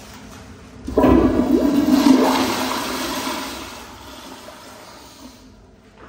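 Zurn flush valve flushing a tankless commercial toilet: a sudden loud rush of water starts about a second in, then eases off over the next few seconds, and the hiss stops sharply near the end.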